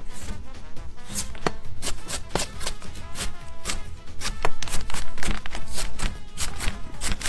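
Chef's knife chopping a hard, raw jicama on a cutting board: a run of sharp, irregular knife strikes, several a second, with background music underneath.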